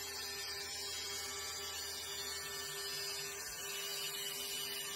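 CNC mill's 87 mm two-insert face mill facing a plank of hard desert ironwood: a steady machine hum with one constant tone running through it and an even cutting noise.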